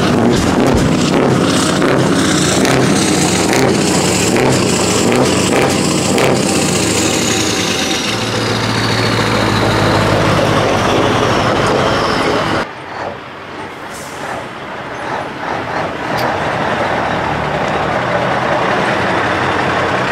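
Scania V8 truck with open exhaust pipes running loud as it rolls slowly past, with a whistle falling in pitch midway. About two-thirds of the way through, the sound cuts to a quieter Iveco V8 truck engine, growing louder as the truck approaches.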